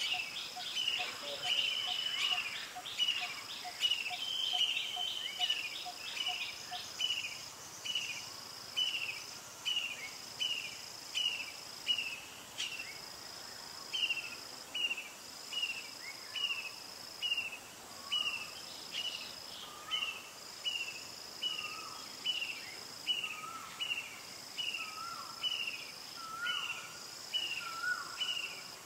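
Forest ambience of insects and birds: a high insect trill in long stretches broken by short gaps, over a short high chirp repeated about three times every two seconds. From a little past halfway a lower rising bird call joins, repeating about once a second.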